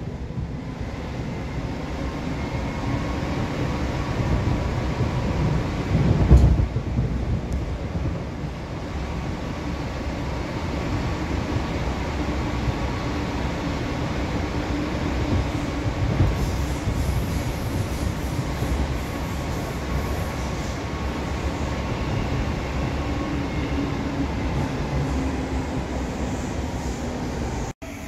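Munich U-Bahn train running through a tunnel, heard from inside the car: a steady rumble of wheels on the track with a faint steady hum, and one loud knock about six seconds in.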